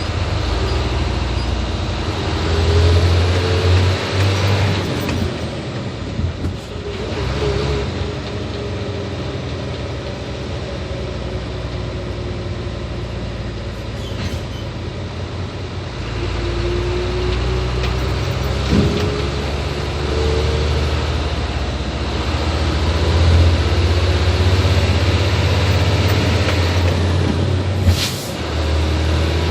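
Hino 500 truck's diesel engine running steadily while driving, growing louder toward the end. A brief hiss comes just before the end.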